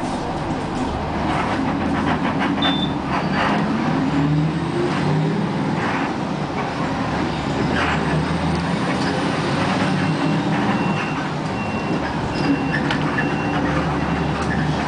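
Large vehicle running with a steady low rumble; its engine or motor rises in pitch a few seconds in as it pulls away, with clicks and rattles early on and a thin high squeal later.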